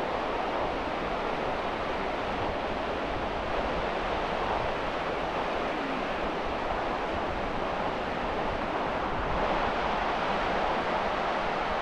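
Steady rush of small waves breaking along the shoreline, swelling slightly twice.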